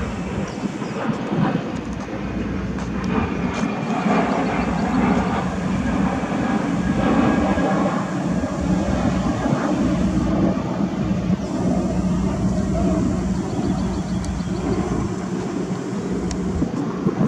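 A steady low hum with a rushing rumble over it, swelling slightly a few seconds in: the sound of running machinery or a passing vehicle.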